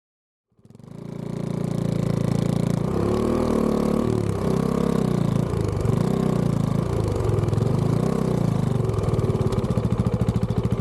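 Husqvarna Svartpilen 401's single-cylinder engine idling. It fades in about half a second in, and its pitch swells and dips in a slow, regular rhythm.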